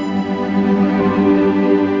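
Slow background music with sustained string-like held chords.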